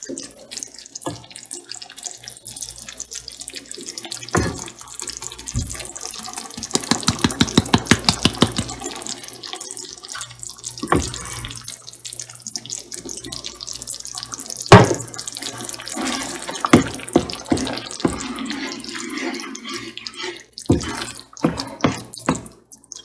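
Thinned cream of mushroom sauce bubbling in a pan while a spoon stirs and scrapes through it, with a quick, even run of taps about seven seconds in and a sharp knock against the pan near the middle.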